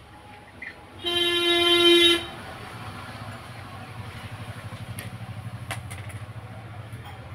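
A vehicle horn sounds once, about a second long on a single steady pitch, starting about a second in. After it a low pulsing rumble, like an engine running, carries on, with two sharp clicks near the middle.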